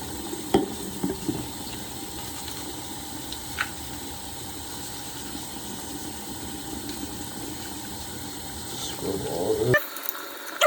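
Soapy toothbrush scrubbing on a pistol frame: a steady wet brushing noise, with a few light knocks of the gun parts in the first seconds and once more a little later. It cuts off abruptly just before the end.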